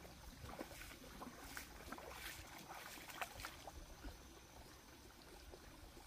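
Faint trickle of a shallow stream, with small splashes and clicks of movement in the water and stones. The splashes thin out after about four seconds.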